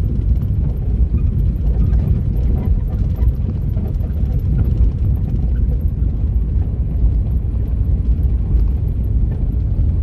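Four-wheel-drive vehicle driving, heard as a steady low rumble of engine and road noise.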